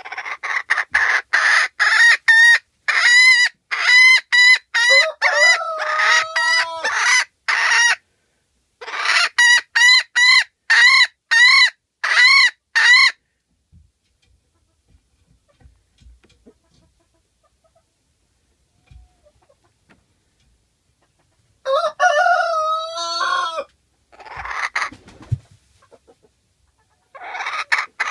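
A hen cackling loudly: quick runs of sharp, repeated clucks with a drawn-out call in among them, stopping for several seconds midway, then a longer drawn-out call and two short bursts near the end.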